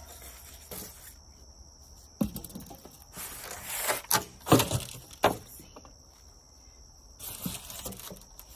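Styrofoam packing pieces being lifted, rubbed together and dropped aside, giving a run of knocks and short squeaks from about two seconds in to just past five seconds.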